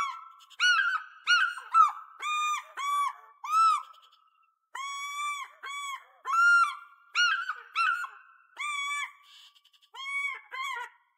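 African fish eagle calling: a string of short, ringing, yelping notes, given in two bouts with a brief pause about four seconds in.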